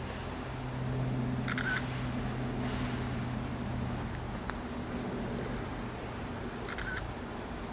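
A steady low hum over outdoor background noise, with two short clicking rattles, one about one and a half seconds in and one near the end.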